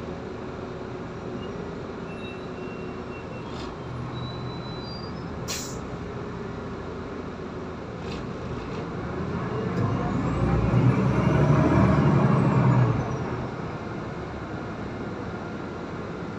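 Cabin sound of a Solaris Urbino 18 III articulated diesel bus under way: steady engine and road noise that swells louder about ten seconds in and drops off sharply about three seconds later. A short sharp click about five seconds in.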